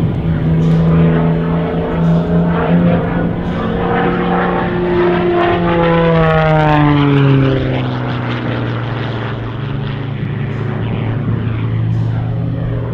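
MXS-RH single-engine aerobatic monoplane's piston engine and propeller running in flight, a steady pitched hum with many overtones. About six seconds in the pitch slides down and then holds lower.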